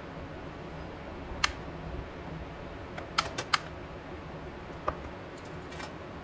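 A handful of light clicks from a steel spoon as cold butter slices are scooped and set on bread in a non-stick pan, with a quick run of three clicks about three seconds in. A steady low hum runs underneath.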